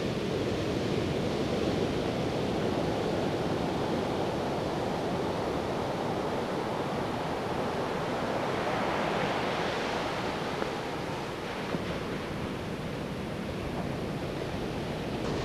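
Ocean surf washing steadily, with a wave swelling and breaking about halfway through.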